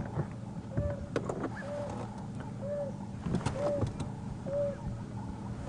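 African wild dog giving its contact "woo" call: short, soft hoots repeated about once a second. It is the call of a pack member that has got separated, calling to find the others.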